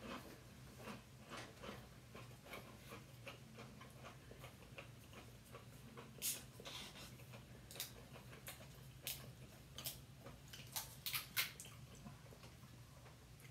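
Mouth-close chewing of a bologna sandwich and potato chips, with scattered small crunches and clicks. The clicks come in louder clusters around the middle and again about ten to eleven seconds in, over a faint steady low hum.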